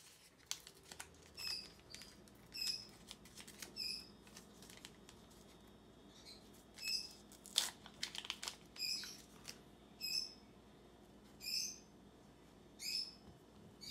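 A bird chirping: short, high calls repeating about once a second. Over it come a few crinkles and tears from a wet-wipe sachet being torn open.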